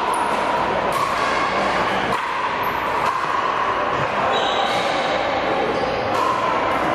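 Pickleball paddles striking a plastic ball: scattered sharp pops about a second apart, echoing in a gymnasium over a steady murmur of voices.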